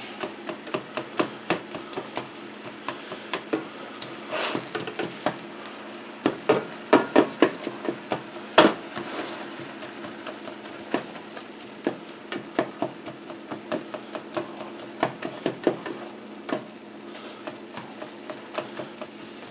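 Ground beef sizzling in a stainless steel skillet as a utensil breaks it up, with irregular scrapes and knocks of the utensil against the pan. The knocks are thickest and loudest in the middle.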